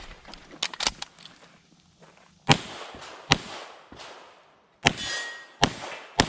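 Five pistol shots at an uneven pace, between about half a second and a second and a half apart, each a sharp crack with a short ringing tail. There are a few lighter clicks about a second in.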